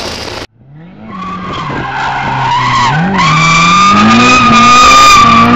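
Toyota Starlet doing a smoky burnout: its engine is held at high revs while the spinning tyres squeal with a steady high tone. A brief burst of in-car engine noise cuts off at the start. The engine pitch dips and climbs again about three seconds in, and the sound grows louder toward the end.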